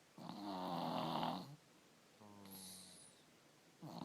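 Three-year-old child snoring, with snoring made worse by strep throat: one long snore, a softer second one, and the next snore starting near the end.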